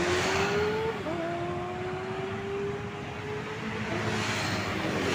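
A motorcycle engine accelerating along the road, its pitch rising, dropping once about a second in at a gear change, then climbing again, over the steady noise of passing traffic.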